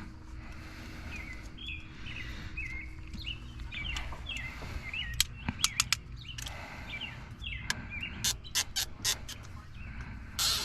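A bird chirps over and over, short quick notes, in the first half. In the second half a run of sharp clicks and taps takes over, the loudest sounds here.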